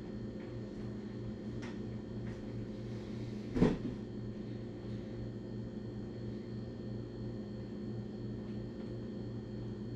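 Steady low hum of the room, with a few faint small clicks and one sharp knock about three and a half seconds in.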